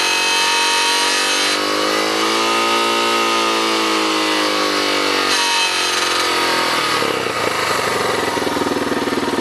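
Suzuki DR650's single-cylinder engine running at high revs. The pitch sags and climbs back in the middle, then falls to a lower, rougher running near the end. It is run in the 5000–6000 rpm range where the owner hears a questionable rattle, which comes at about the start and about six seconds in.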